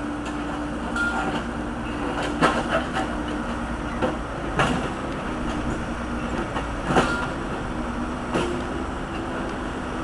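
Case backhoe's diesel engine running steadily, with a few sharp metal clanks from the bucket and boom linkage as it digs.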